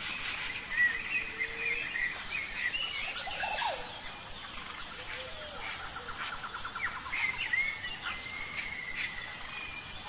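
Natural woodland ambience: birds chirping and calling over a steady high insect trill. Around the middle, a fast trill of rapidly repeated notes.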